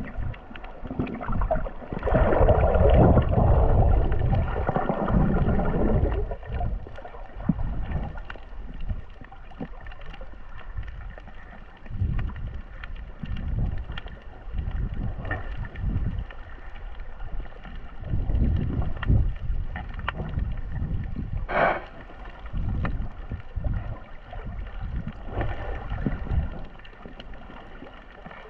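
Muffled water noise heard underwater: low rumbling whooshes and swirls of moving water as a snorkeler swims and kicks with fins, loudest in the first few seconds just below the surface.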